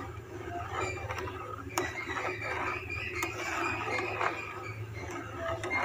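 A spoon stirring and scraping pulao in a cooking pot, repeated scrapes and small knocks against the pot, keeping the rice and cracked wheat from sticking to the bottom and burning.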